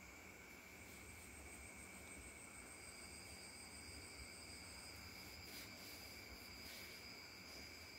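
Faint, steady high-pitched trilling of crickets at several pitches, with one higher trill joining about three seconds in and dropping out near the end. Otherwise near silence.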